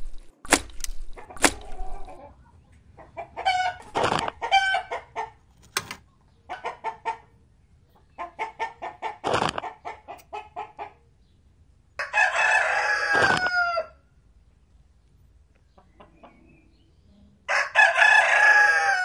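Chicken calls: a few sharp clicks, then runs of quick clucking, then two long rooster crows in the second half.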